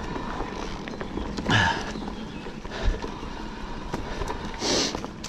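Electric mountain bike rolling along a dirt woodland single track: tyre noise with the bike rattling and knocking over the trail, plus two short louder rushes, about a second and a half in and near the end.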